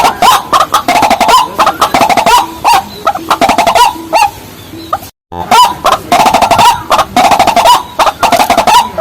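Rail-family water birds, waterhen type, calling: loud, fast, repeated clucking notes with sharp clicks, broken by a brief total gap about five seconds in.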